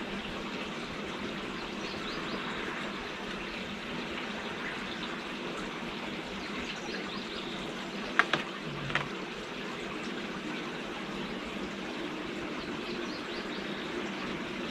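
Steady outdoor background hiss, with two short knocks a little over halfway through.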